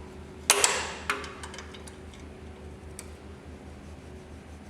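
A sharp metallic clank about half a second in, then a few light ticks and clicks: hand tools and a bolt being worked on a motorcycle's centre-stand mount.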